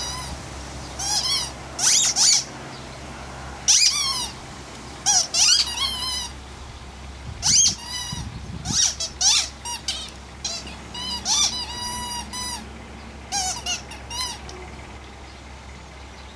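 Squeaky toy squeaked over and over in short, irregular bursts, each squeak high-pitched and bending up and down, stopping about two seconds before the end.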